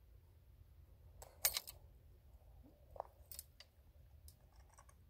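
A few short, sharp clicks and ticks from a fishing rod and reel being handled, the loudest about a second and a half in, over a faint low rumble.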